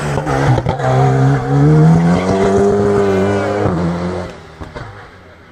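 Alpine A110 rally car accelerating hard out of a hairpin, with a few sharp cracks in the first second, then the engine note climbing in pitch and holding before it fades as the car drives away.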